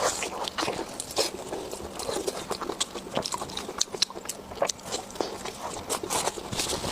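Close-miked eating sounds: a person chewing and biting food with many quick, irregular wet smacks and clicks of the mouth.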